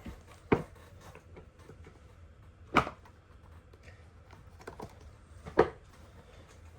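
Fidget toys and other small objects being moved around and set down on a table: three sharp knocks spread a couple of seconds apart, with faint small clicks and rustling between.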